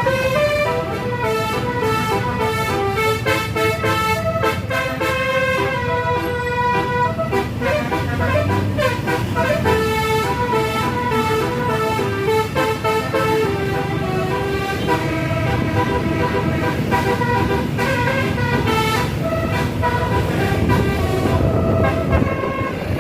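A tour bus's basuri "telolet" multi-tone horn playing a tune, one held note stepping to the next without a break, over engine and road noise.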